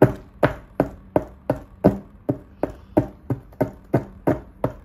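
A toy pickaxe tapping steadily at a plaster fossil-dig block on a tabletop, chipping it away, about three sharp knocks a second, each with a short ring.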